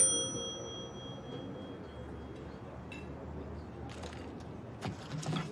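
A single bright metallic ding at the start that rings out and fades over about two seconds. A few light clicks follow near the end.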